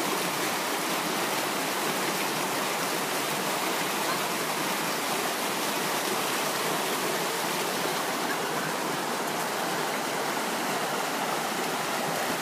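Creek water rushing steadily over rocks and small rapids.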